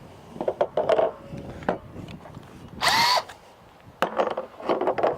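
Power drill briefly spun up, a short rising whine about three seconds in. Scattered clicks and knocks come before and after it.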